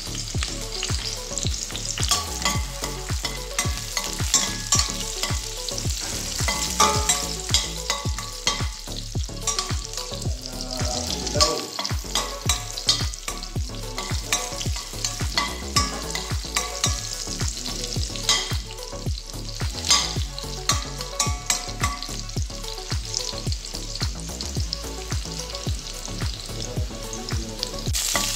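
Chopped garlic sizzling in hot oil in a stainless steel pan, with a metal spoon scraping and clicking against the pan as it is stirred.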